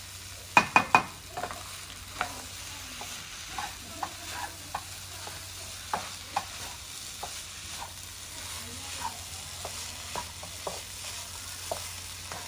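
Fried rice sizzling in a nonstick frying pan as a wooden spatula stirs and scrapes it, with irregular taps of the spatula on the pan. Three loud knocks come in quick succession about half a second in.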